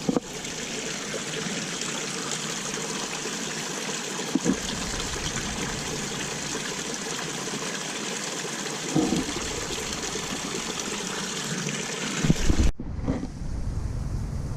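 Running water, a steady trickling rush that cuts off suddenly near the end and gives way to a low rumble.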